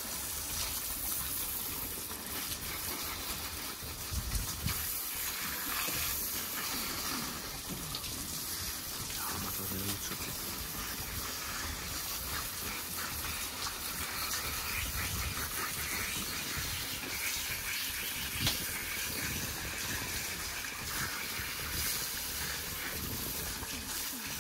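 Garden hose spray nozzle spraying water onto gutted trout on a wooden board: a steady hiss and splatter of water.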